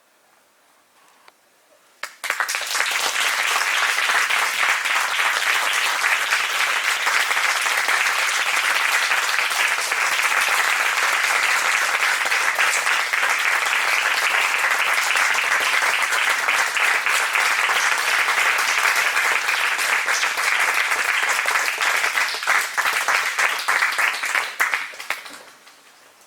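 Audience applauding: after about two seconds of near silence the clapping starts suddenly, holds steady and dense, then thins to a few scattered claps and stops near the end.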